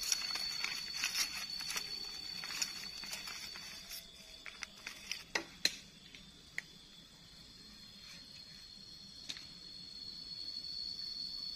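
Plastic bags crinkling and rustling as food is unpacked by hand, dense for the first few seconds, then a few scattered crackles. A steady high insect drone runs underneath and grows louder near the end.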